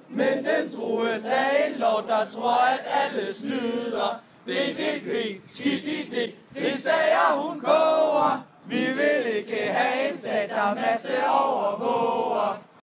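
A group of people singing a song together without accompaniment, line by line with short breaks between phrases.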